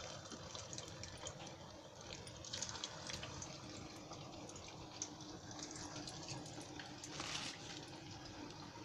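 Faint sizzling of a pea-and-paneer kabab deep-frying in hot oil, with scattered small crackles.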